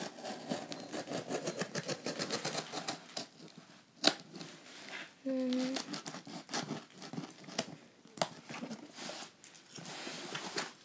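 X-Acto knife scraping and slitting the packing tape along a cardboard box's seam, a rapid crackly scratching of blade on tape and cardboard, with a sharp knock about four seconds in.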